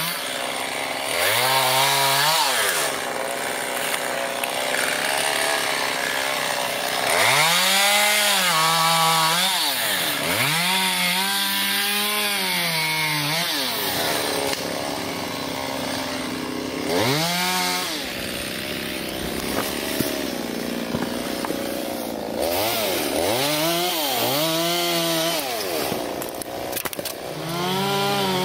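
Stihl chainsaw running and repeatedly revving up, then dropping back, in bursts of one to three seconds while limbs are cut.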